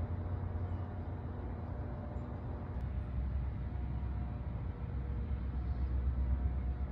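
A motor vehicle engine running with a low, steady rumble that grows louder over the last couple of seconds.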